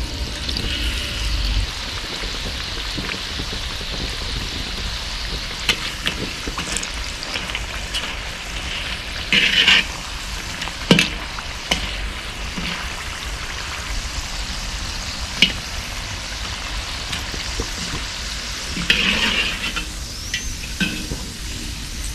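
Batter-coated carrot strips deep-frying as tempura in hot oil in a wok, a steady sizzle that flares up louder twice. A metal skimmer stirring them clicks now and then against the pan.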